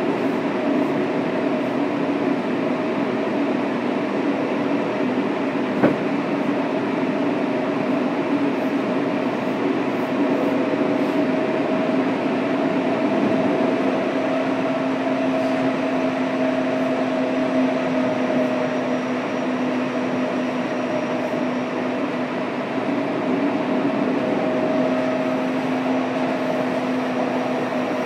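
Fukuoka City Subway 2000 series train with Hitachi GTO inverter drive running at a steady pace, heard from inside the passenger car: even rolling noise with low steady hum tones and one sharp click about six seconds in.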